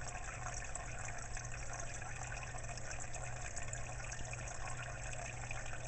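Water in a marimo aquarium bubbling and trickling steadily, a fine crackle of small bubbles over a constant low hum.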